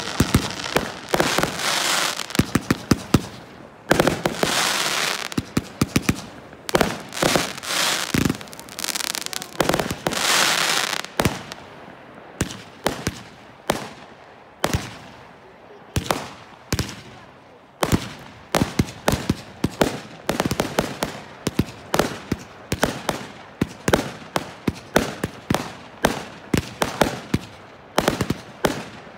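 Fireworks display: aerial shells bursting overhead in quick succession with sharp bangs and dense crackling, heaviest in the first few seconds and again about ten seconds in. In the second half the bursts come as a steady string of separate bangs, roughly one or two a second.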